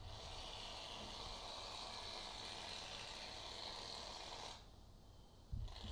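Aerosol can of shaving foam spraying in a steady hiss for about four and a half seconds, cutting off abruptly; after a knock, a second spray starts near the end.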